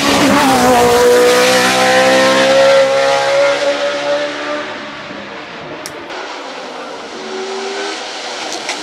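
BMW 320 E36 hillclimb car's Judd racing V8 at high revs, passing close by. Its note drops sharply just after the start, holds high and steady for about four seconds, then fades into the distance.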